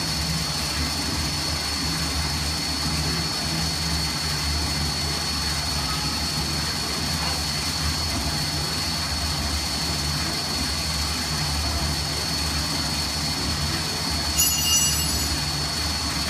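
Ribbon blender running: its electric motor and reduction gearbox hum steadily with a constant high whine. A short, sharp, louder sound breaks in once near the end.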